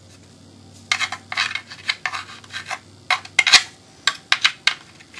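Clicks, knocks and scraping of an airsoft gun's full stock being worked onto the receiver, with plastic and metal parts knocking together in irregular clusters from about a second in.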